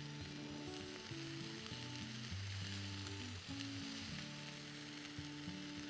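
Chopped collard greens sizzling as they are dropped by hand into a hot frying pan of olive oil and browning onion. A steady hiss runs underneath soft background music.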